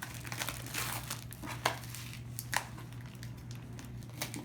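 Packing material and tape being crinkled and pulled away while a parcel is opened: irregular crackling and rustling with a few sharper snaps.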